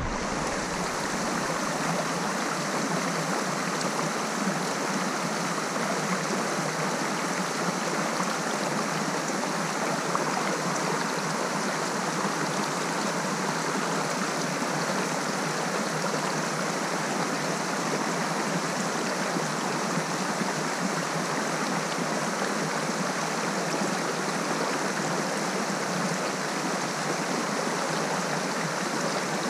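Small waterfall spilling over rocks into a pool: a steady rush of falling water.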